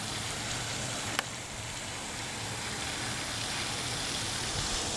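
Steady outdoor background noise: a low rumble under a faint hiss, with a single faint click about a second in.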